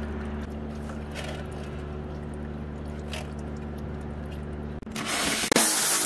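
Coolant draining out of the radiator into a plastic bowl, over a steady low hum, with a few faint ticks. About five seconds in, a loud rushing splash takes over for about a second.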